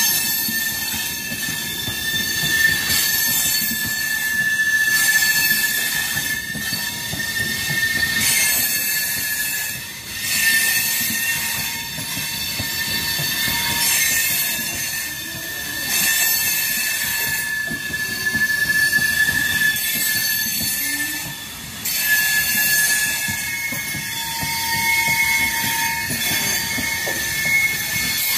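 Indian Railways passenger coaches rolling slowly past close by: a continuous rumble of wheels on rail under a high, thin, wavering squeal from the wheels, with scattered clicks. The sound dips briefly twice as gaps between coaches go by.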